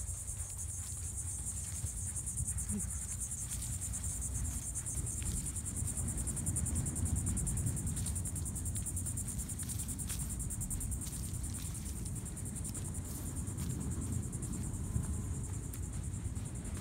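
A steady, high-pitched insect chorus with a fast pulse, like crickets trilling, over a continuous low rumble.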